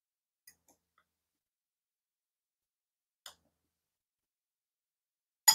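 Metal spoon clicking against a glass bowl while eating: two faint clicks about half a second in, another about three seconds in, and a sharper, louder click near the end, with near silence between.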